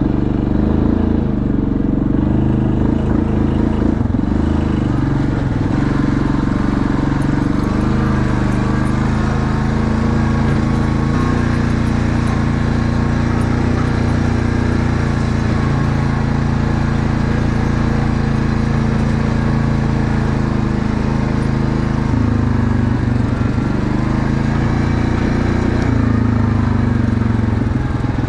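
ATV engine running at a steady, moderate speed while pulling a load, its pitch rising and falling slightly.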